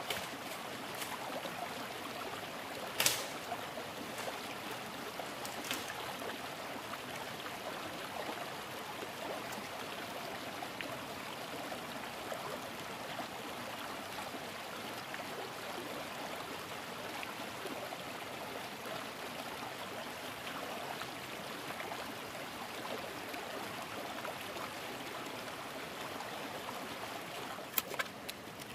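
Water of a stream running steadily, with a few sharp clicks or knocks, the clearest about three seconds in.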